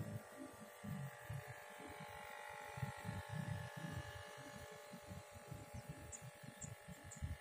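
Wind buffeting the microphone in gusts, over a faint steady whine from the small Tamiya electric motor driving a foam toy tugboat on the water. A few short high chirps come in near the end.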